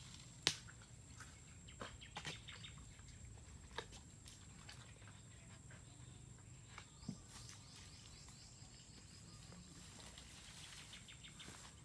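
Faint outdoor ambience: scattered light clicks and ticks over a steady, faint high-pitched tone, with a brief run of rapid clicks near the end.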